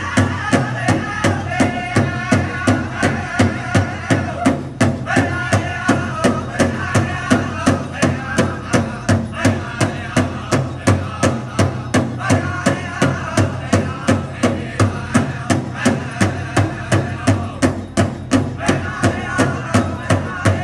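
Pow wow drum group: one big drum struck in unison at a fast, steady beat of about two strokes a second, with singers' voices rising and falling over it, a song for women's fancy shawl dancing.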